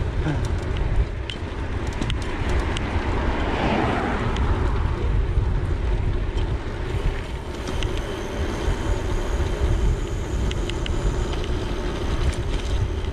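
Wind buffeting the handlebar camera's microphone, with tyre rumble from a gravel bike rolling on tarmac as it is ridden at speed. A few light clicks sound near the end.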